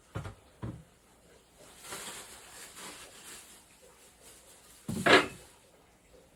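Kitchen handling noises: two soft thumps near the start, a stretch of faint rustling, then a louder knock about five seconds in.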